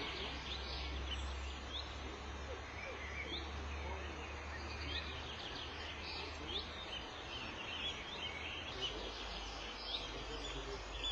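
Northern lapwings giving alarm calls, many short chirps and rising notes overlapping with no break. A low rumble runs underneath and eases off about halfway through.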